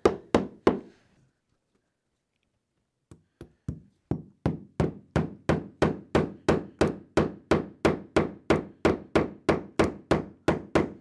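Hammer driving spiral nails into a metal carpet trim strip: three quick blows, a pause of about two seconds, then light taps that build into a steady run of about three strikes a second.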